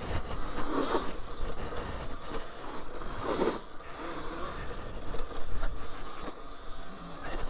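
Talaria Sting R MX4 electric dirt bike climbing a rocky trail: tyres grinding and scraping over rock and gravel with irregular knocks, over a low rumble of wind on the microphone.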